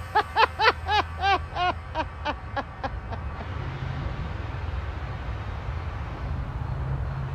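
Ghost Tube app's electronic voice output ringing on as a quick series of short pitched blips, about three a second, that fade away over roughly three seconds. After that a steady low rumble of distant traffic.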